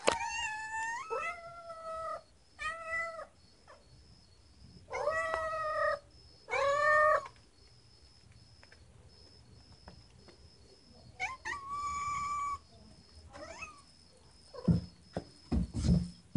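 Domestic cats meowing, about seven meows with pauses between, several of them drawn out, then a few short low thumps near the end.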